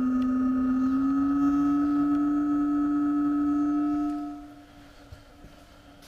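A single held musical tone that rises slightly in pitch about a second in, then fades out a little after four seconds.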